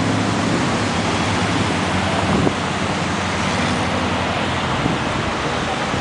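Steady road and traffic noise, an even rushing haze, with a low engine hum that fades out over the first second and a half.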